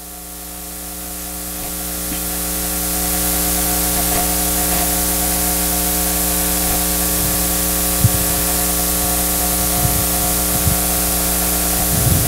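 Steady hiss with an electrical mains hum from the church's sound or recording system, swelling over the first three seconds and then holding steady, with a few faint clicks.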